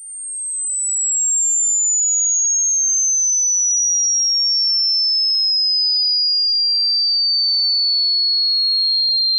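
A pure electronic sine tone, of the kind used in a hearing test, fading in over the first second and then sliding slowly and steadily downward from a very high pitch to a somewhat lower high pitch.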